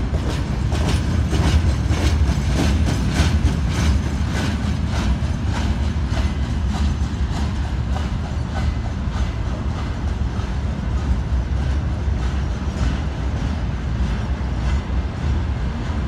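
Freight train wagons rolling past: a steady low rumble with a rhythmic clickety-clack of wheels over rail joints, the clicks growing fainter in the second half.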